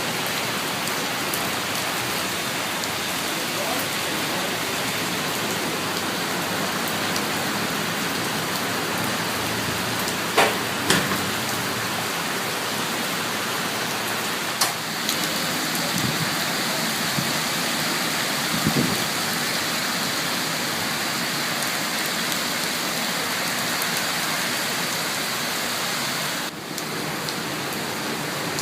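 Heavy rain falling steadily, a dense even hiss, with a few sharp taps about ten, fifteen and nineteen seconds in.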